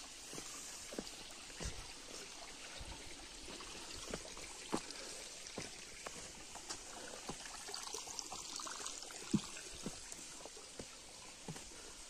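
Shallow creek trickling over rocks, with irregular footsteps on a rocky trail scattered through it.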